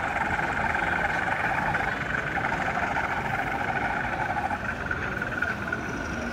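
Engine sound of a sound-fitted OO gauge model diesel locomotive, playing steadily through its small onboard speaker with little bass. The lower part of the sound drops away about two-thirds of the way through.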